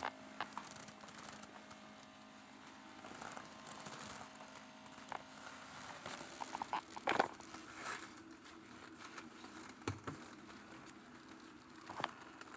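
Coffee maker brewing: faint crackles and pops over a low steady hum, with a louder crackle about seven seconds in.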